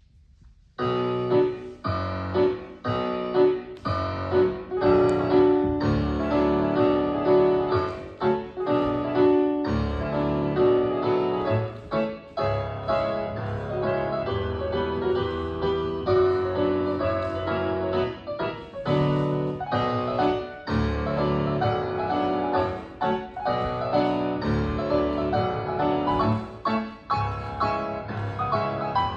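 Solo piano playing classical-style ballet class accompaniment with a regular pulse of chords, starting about a second in.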